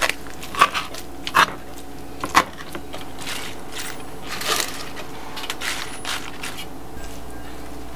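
Three sharp knocks of a plastic colander on a wooden cutting board as soaked wakame is shaken out of it. After that, softer crinkling of crisp lettuce leaves being spread in a porcelain dish.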